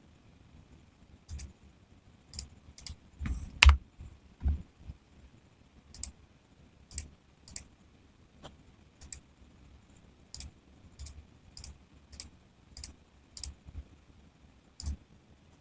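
Mechanical keyboard keys pressed one at a time at a slow, uneven pace, each a short clack, with a few louder, heavier strikes about three to four seconds in.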